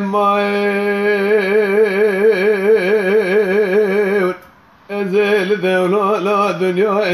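Unaccompanied male dengbêj singing in Kurdish: one long held note that wavers up and down for about four seconds, a short break for breath, then the voice resumes in a quickly ornamented, wavering line.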